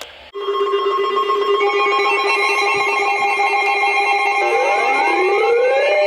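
Several weather alert radios sounding their alarms together: steady alert tones, including one near 1 kHz like the NOAA Weather Radio 1050 Hz warning tone, start abruptly, and more tones join within a couple of seconds. From about four and a half seconds in, repeating rising siren sweeps are added on top.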